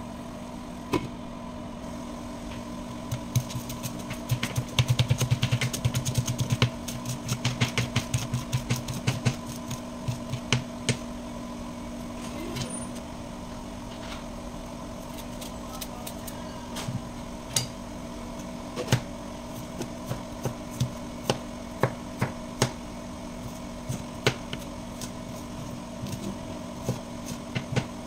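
A steady motor hum with a few fixed tones, likely the kitchen extractor fan, runs under a busy run of clicks and knocks in the first ten seconds. In the second half a kitchen knife cuts ginger on a plastic chopping board, with single sharp taps every second or so.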